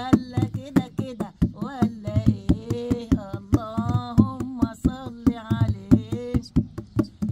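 Egyptian goblet drum (tabla/darbuka) with a worn skin head, beaten by hand in a quick, steady folk rhythm. A woman sings an Egyptian Arabic folk song over it, her voice coming in a little after a second and falling away near the end.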